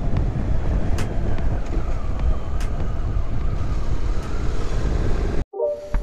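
Honda NC700X parallel-twin motorcycle running at road speed, its engine heard under a steady low rumble of wind and road noise. The sound cuts off abruptly about five and a half seconds in, and music starts.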